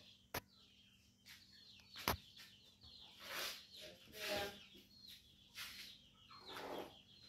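Broody hen clucking softly over her chicks, with a few faint high chick peeps near the end and two sharp knocks in the first two seconds.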